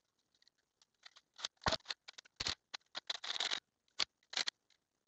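Irregular metal clicks and scrapes of a hand-held socket working the bolts of a tractor clutch pressure plate on the flywheel, with a quick run of clicks about three seconds in.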